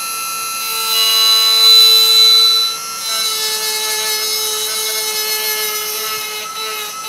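Handheld electric engraving pen running with a steady high-pitched whine as its tip is drawn along a line in glass. It gets louder and harsher from about one second in until nearly three seconds in, then settles back to a steady whine.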